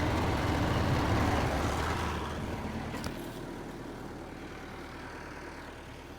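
Massey Ferguson 300 crawler dozer's engine running hard under load, then easing off about two seconds in and settling to a lower, quieter run. A single sharp click sounds about three seconds in.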